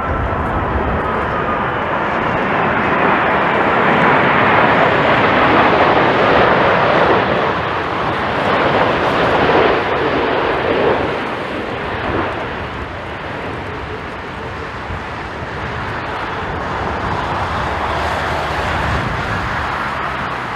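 Jet airliner passing on landing approach: a loud engine rush that builds, peaks in the middle, then fades away.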